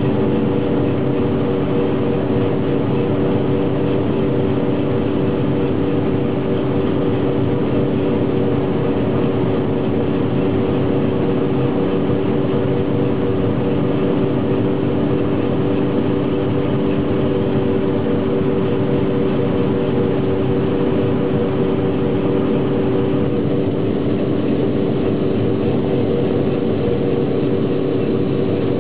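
Combine harvester running steadily under load while cutting grain, heard from inside the cab: a constant machine drone with a steady hum that does not change.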